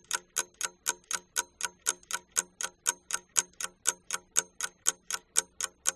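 Clock-ticking sound effect marking a countdown timer: sharp, even ticks about four times a second.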